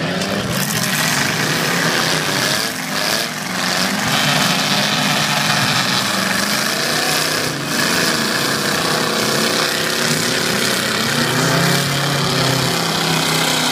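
Several demolition derby cars' engines revving up and down as the cars drive and ram each other, with a few knocks of impacts around three seconds in and again near the middle.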